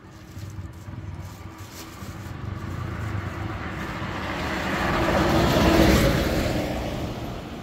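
A motor vehicle passing on the road, its engine and tyre noise growing louder to a peak about six seconds in, then fading.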